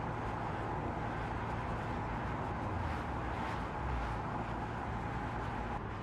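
Mercedes-AMG EQE 53 electric sedan driving on the road: steady road and tyre noise with a low rumble and a steady mid-pitched hum.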